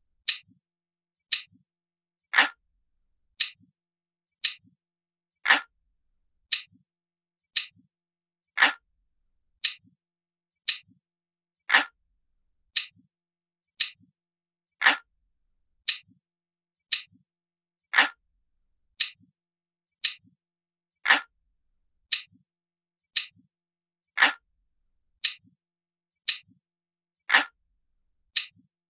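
Glass-like clock ticking sound effect of a countdown timer: crisp, evenly spaced ticks about once a second, with every third tick louder and fuller.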